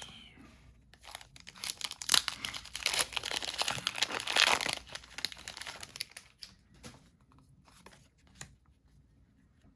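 Foil wrapper of a Pokémon TCG booster pack crinkling and tearing open, densest from about one to five seconds in, then a few lighter scattered crinkles.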